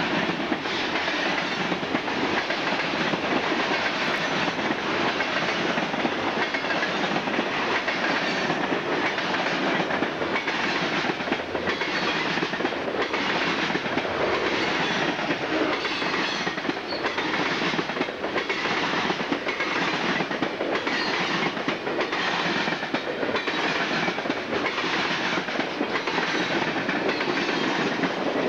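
Freight train of covered hoppers and gondolas rolling past close by: steady noise of steel wheels on rail, with a regular clickety-clack as the wheels cross rail joints.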